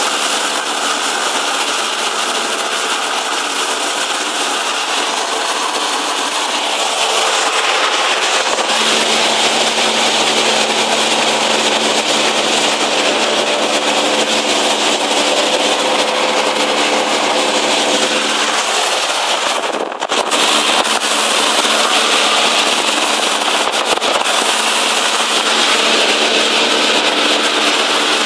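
Cessna 152's four-cylinder Lycoming engine and propeller running steadily in flight, heard inside the cabin with heavy airflow noise. The engine note shifts slightly and grows a little louder about eight seconds in.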